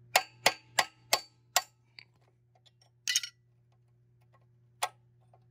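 Sharp metallic clicks from a motorcycle foot peg mount being worked by hand to free its bent retaining pin and key: five in quick succession, about three a second, then a few scattered ones.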